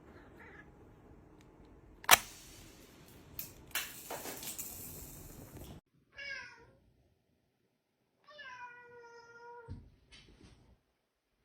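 A domestic cat meowing twice: a short wavering meow about six seconds in, then a longer, steady meow about two seconds later. Before the meows there is a sharp knock about two seconds in, followed by a few seconds of rustling noise with small knocks.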